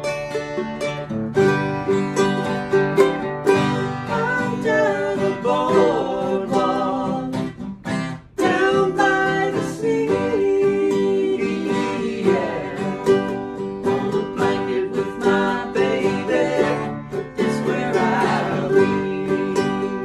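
Acoustic guitar and ukulele played together in a steady acoustic jam, with a man's voice singing along in places. The playing breaks off briefly about eight seconds in, then picks straight back up.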